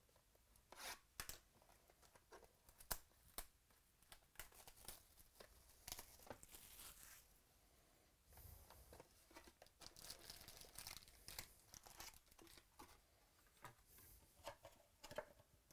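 Plastic seal tape and shrink wrap being torn off a trading-card hobby box, then the cardboard box handled and opened and the foil card packs crinkling as they are taken out and set down. A string of short tears, crinkles and light taps, fairly faint overall.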